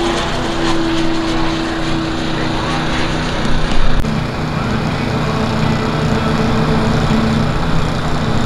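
Radio-controlled model airplane engine droning steadily, its pitch sagging slightly. There is a brief loud bump just before the sound changes to a second model plane's engine, whose pitch rises slowly.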